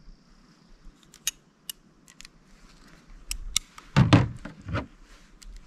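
Light metallic clicks and clinks of a Ruger Blackhawk revolver and its .38 Smith & Wesson cartridges being handled, then a heavy thump about four seconds in, with a smaller one just after, as the revolver is set down on a plastic folding table.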